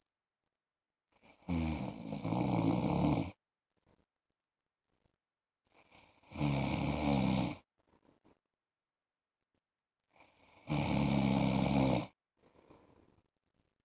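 A man snoring: three loud snores, each about a second and a half long and some four and a half seconds apart, with faint breathing between them.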